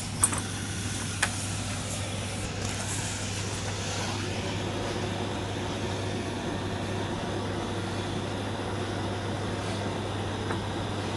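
Brazing torch flame hissing steadily over a constant low hum, with two sharp clicks about a second apart near the start.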